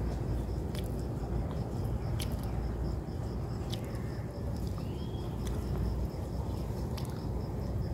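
Outdoor ambience: a steady low rumble under a high, thin chirp pulsing about four times a second, with a short rising whistle about five seconds in and a few faint sharp clicks.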